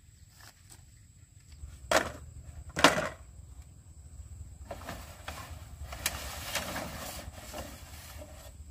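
Two sharp wooden knocks a second apart, then, from about five seconds in, a long hollow rattle and scrape of dry bamboo poles knocking together as a pole is pulled out of a pile.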